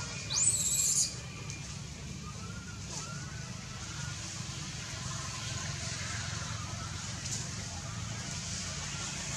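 Baby macaque giving one shrill, high-pitched squeal that rises in pitch about half a second in, followed by faint, thin gliding calls.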